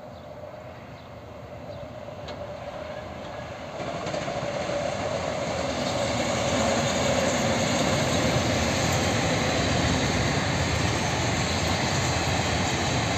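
Passenger train hauled by an electric locomotive passing on the rails: a broad running noise of wheels on track that grows louder over the first six seconds as it approaches, then holds steady as the coaches roll by.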